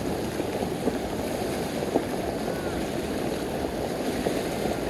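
Slough water rushing out through a breach in the sand berm, a steady churning of turbulent whitewater, with a few brief sharp splashes.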